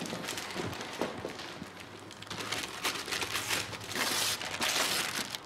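Gift-wrapping paper being torn and crumpled as a present is unwrapped: a run of crackling rustles that grows busier and louder in the second half.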